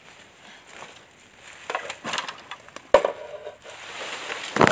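Dry leaf litter and bamboo stems crunching and crackling as a cut bamboo pole is handled in the undergrowth, with a sharp wooden knock about three seconds in and a louder clatter near the end.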